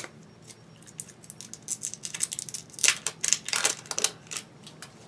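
Packaging being wrestled open by hand: a run of irregular sharp clicks and crinkly rustles, busiest and loudest about three to four seconds in.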